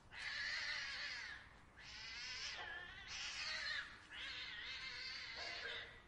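Cats yowling in a fight: four long, wavering yowls one after another, the last ending just before the end.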